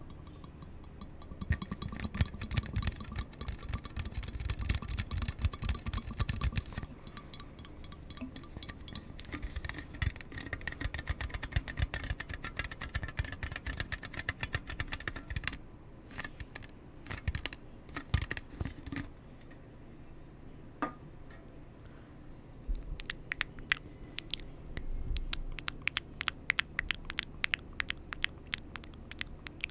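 Close-miked ASMR trigger sounds: rapid, irregular clicking and crackling, thinning out about midway and growing busy again near the end.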